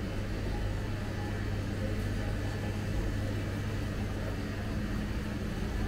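Steady low hum over an even background of street ambience, with no distinct events.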